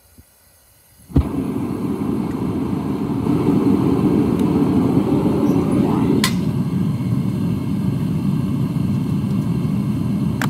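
Gas burner of a metal-melting furnace lighting with a sudden whoomp about a second in, then burning with a steady, heavy rushing noise. A short rising tone and a sharp click come about six seconds in.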